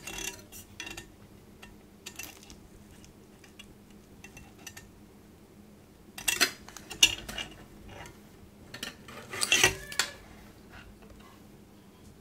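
A small racing quadcopter being handled and turned over: scattered light clicks, knocks and rustles of its carbon-fibre frame, plastic propellers and 3D-printed camera mount, busiest in two short spells a little past halfway and again a few seconds later.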